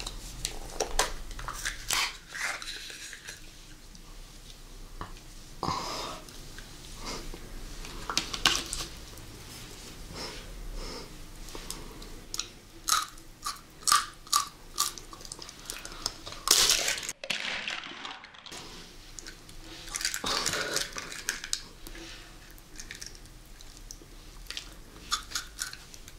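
Close-miked eating sounds: clicks and rattles of plastic bubble-tape containers being opened, then biting and chewing of jelly candy, a run of short sharp sounds.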